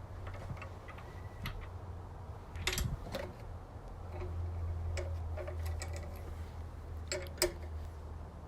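Scattered metal clicks and knocks from a swivelling bench vise being handled and forced to turn while its swivel is clamped tight, over a low steady hum.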